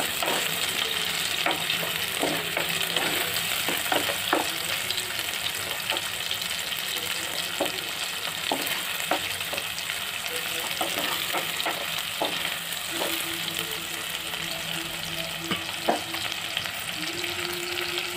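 Sliced shallots, green chillies and curry leaves sizzling steadily in sesame oil in a clay pot while being sautéed, with a wooden spatula now and then knocking and scraping against the pot's side as it stirs.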